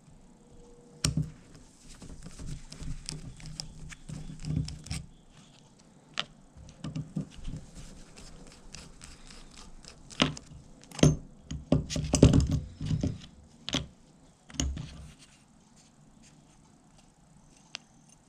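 Screwdriver turning out the cover-plate screws of a WW2-era Plomb ratchet, with irregular metal clicks, scrapes and small knocks as the screwdriver and ratchet parts are handled. The clicks and knocks are busiest and loudest a little past halfway, then die down.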